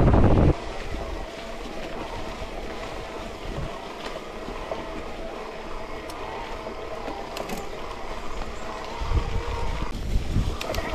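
Hardtail mountain bike being ridden over a rough trail: heavy wind noise on the microphone stops abruptly about half a second in, leaving the steady rattle and hum of the bike with a few sharp clicks, and the wind comes back in near the end.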